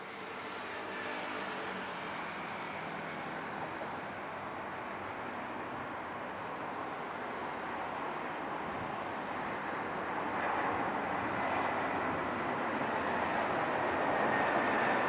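Airbus A319 airliner jet engines on approach to land, a steady rushing roar with a faint high whine, growing gradually louder as the plane comes nearer.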